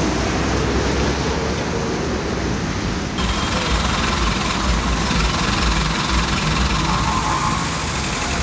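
Steady rumble of city traffic and vehicles, with no clear single event. About three seconds in the sound changes abruptly to a brighter, hissier street ambience.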